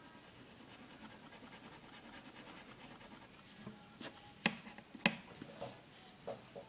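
Fine-tip pen scratching across paper in quick short strokes while drawing. Then come two sharp clicks about half a second apart and a few lighter ticks.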